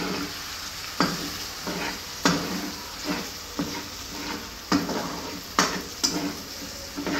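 Metal fork scraping and clinking against a frying pan as chopped potatoes and tomatoes are stirred, a stroke about once a second, over a steady sizzle of frying.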